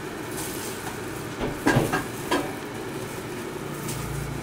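Steady hiss and hum of a Mitsubishi induction (IH) cooktop heating a pot of water that is not yet boiling. A few short clicks come about two seconds in and again near the end.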